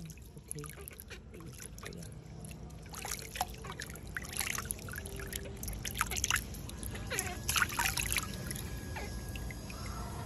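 Water splashing and trickling in a shallow plastic tub as hands scoop and pour it over a baby monkey, in irregular splashes and drips.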